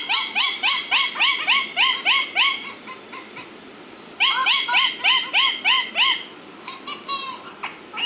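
Indian ringneck parakeet calling in fast runs of repeated notes, about four a second, each note rising and falling. There are two bouts, with a pause of about a second and a half between them.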